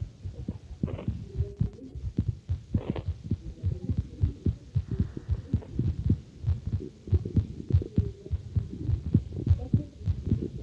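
Human heartbeat heard through a stethoscope on the chest: a steady, repeating run of short, low thuds.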